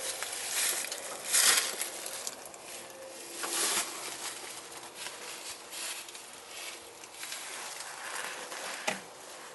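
Dry leaves crunching and rustling in several short bursts, the loudest about a second and a half in, with a single sharp snap near the end.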